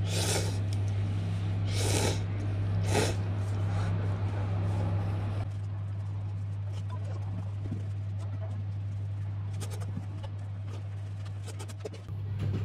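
Noodles being slurped from a bowl: three short slurps in the first three seconds or so, over a steady low hum, with a few light clicks near the end.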